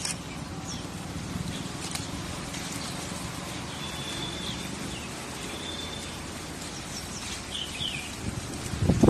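Birds chirping now and then, a few short high calls and whistles, over a steady low outdoor background noise, with a loud low rumble near the end.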